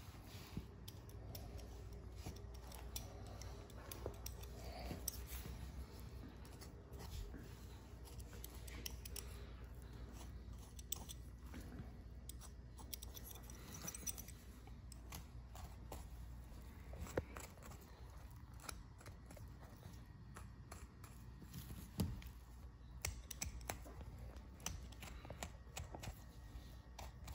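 Faint clicking and scraping of a small blade cutting the skin of a deer's ear away from its cartilage, with a few sharper clicks, over a low steady hum.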